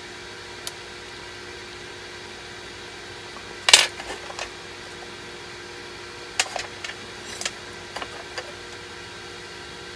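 Small metal hand tools and a bench vise handled on a glass-topped workbench. There is a sharp knock a little under four seconds in as the forceps are set down on the glass, then clusters of light clicks and taps between about six and eight and a half seconds, over a steady low hum.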